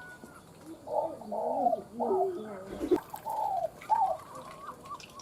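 Spotted dove (cu gáy) cooing: a phrase of several wavering coos from about one second in to about four seconds in, followed by fainter, higher notes. The bird is one prized by trappers as a lure for its thin, narrow-pitched voice.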